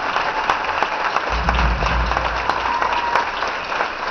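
Audience applauding: dense, steady clapping from a large crowd in an auditorium, with a brief low rumble a little over a second in.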